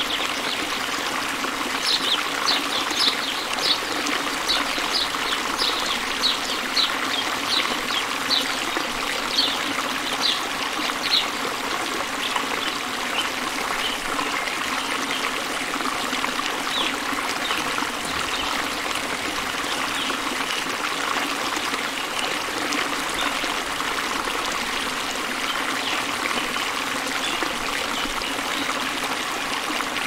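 Steady flowing stream water. Over it a bird repeats short, high, falling chirps about twice a second from about two seconds in, then sings fainter and more sparsely after about eleven seconds.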